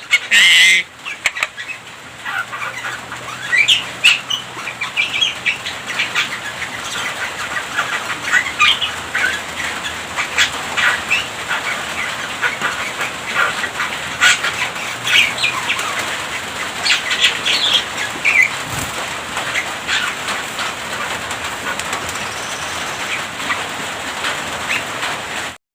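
A Javan myna chattering in a fast, continuous run of short chirps and whistles over a steady hiss, with a loud burst right at the start; it cuts off suddenly near the end.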